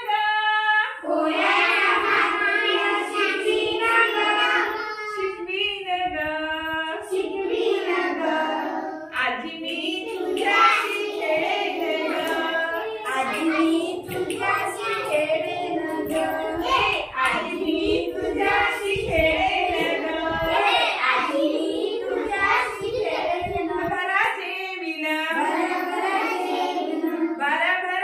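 Young children singing a Marathi action song in unison with women teachers, with hand claps through the middle of the song.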